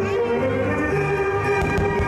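Music with long held notes, strings among them, playing at a steady loud level, with a few faint cracks of fireworks bursting about three-quarters of the way through.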